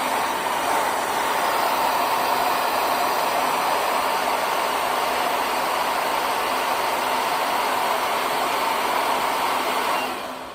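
REPRONIZER 7D Plus hair dryer running steadily: a rush of blown air with a steady hum from the motor, then switched off near the end and dying away within about half a second.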